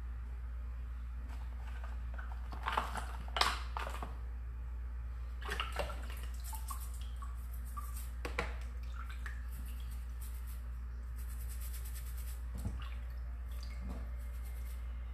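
Water splashing and dripping as a quartz crystal is dipped and scrubbed with a toothbrush in a plastic tub of muddy water. There are a few sharper splashes in the first half and a spell of fine rapid bristle scratching later, over a steady low hum.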